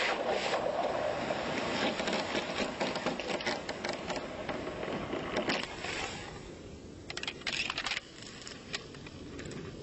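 Metal clacking and scraping from the HK21E machine gun's quick-change barrel being unlatched, pulled from the receiver and a new barrel slid in. There is a busy stretch of rattling for about six seconds, then a quick run of sharp clicks about seven seconds in as the parts lock home.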